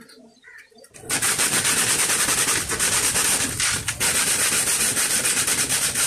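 Rapid, scratchy rubbing against the polycarbonate bottom of a 5-gallon water bottle, starting suddenly about a second in and going on steadily.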